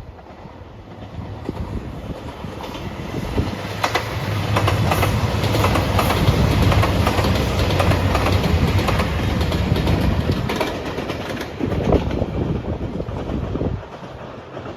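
JR Shikoku 2700 series diesel limited express train passing close by, its wheels clicking over the rail joints. It grows louder, peaks in the middle and drops off suddenly near the end.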